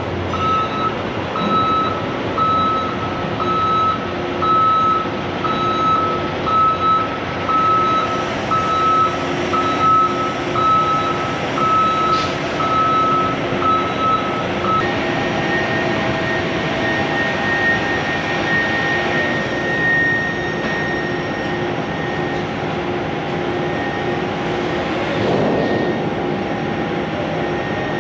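Tractor-trailer reversing into a loading bay, its backup alarm beeping about three times every two seconds over the running truck engine. The beeping stops about halfway through, leaving the engine and a steady high-pitched whine.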